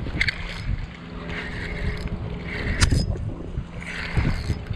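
Wind buffeting the microphone, with handling rustles and knocks from a spinning rod and reel being worked while a hooked shad is fought. A faint steady low hum runs underneath, and there is one sharp click about three seconds in.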